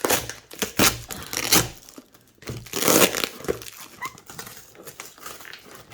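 Parcel packaging crinkling and tearing as it is handled and opened, a run of sharp crackles with a louder rustling burst about three seconds in.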